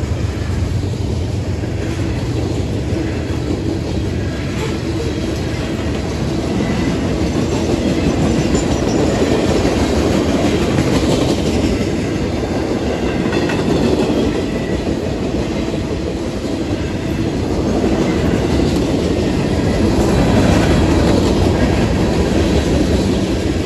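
Freight cars of a manifest train rolling past at a grade crossing: a steady rumble of steel wheels on rail with clickety-clack over the rail joints, swelling a little twice.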